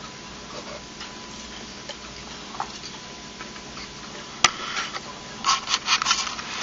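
Quiet room background, then a single sharp click about four and a half seconds in. Near the end comes a quick run of clinks and clatters of utensils against dishes at a breakfast table.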